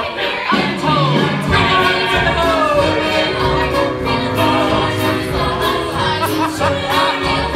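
Stage cast singing a show tune together, women's voices in front, with instrumental accompaniment; several vocal lines sung over one another as the song's separate verses are combined.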